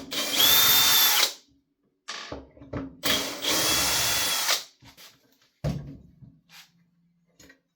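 Power drill-driver running in two short bursts, each about a second long, with a steady whine, as the two bolts holding the ignition coil on an Echo PB250LN leaf blower are backed out. Small clicks and knocks of parts being handled come between the bursts and after them.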